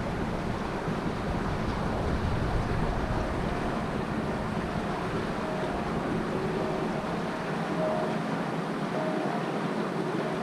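Slow river water swirling and lapping close to the microphone, a steady rush, with a low rumble of wind on the microphone that eases off about halfway through.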